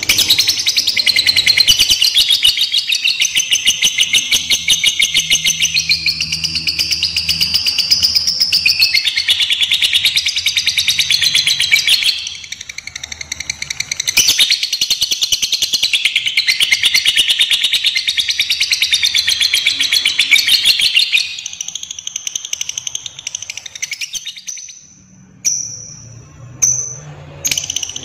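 Lovebird singing 'ngekek': long, unbroken runs of very rapid, shrill chattering notes, the long song prized in a fighter lovebird. Two long runs with a short break between them, then a pause and a few short calls near the end.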